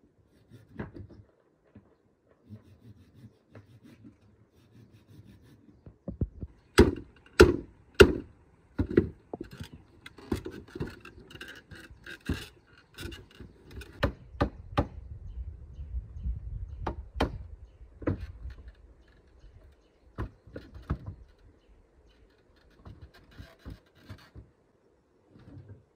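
Wooden pieces knocking and thudding against each other and the wooden floor as they are handled and fitted. There are three hard knocks in quick succession about seven seconds in, then scattered knocks with some scraping.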